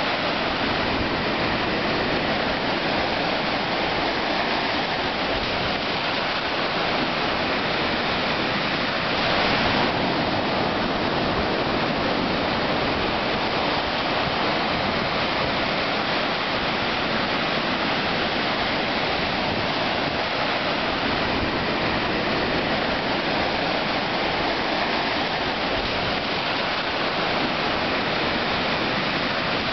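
Ocean surf at the shoreline: small waves breaking and foam washing up the sand in a steady rush, swelling briefly about ten seconds in.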